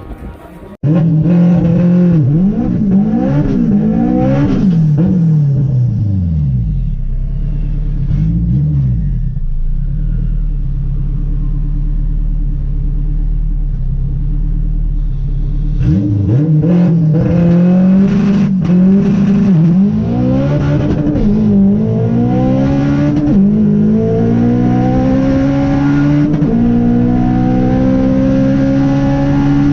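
Turbocharged Honda K20 four-cylinder engine in a Civic revving in quick rising and falling blips, then settling to a low steady hum for about ten seconds. About sixteen seconds in it goes to full throttle, and the engine note climbs steadily through the rest of the run.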